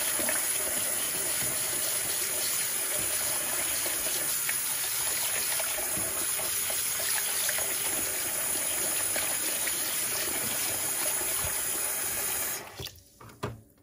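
Kitchen tap running steadily into a stainless steel pot of water in a sink while a hand swishes shredded dried pork skin in the salt-water rinse. The tap is shut off about a second before the end, followed by a light knock.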